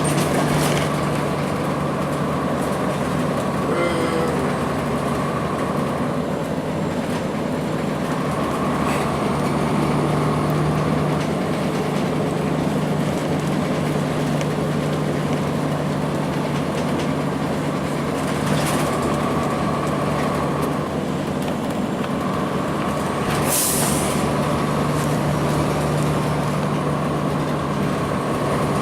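2002 Blue Bird CS transit bus under way, its Cummins ISC diesel running with a steady drone and road noise. Two short hisses of air from the air-brake system, the louder one about three quarters of the way through.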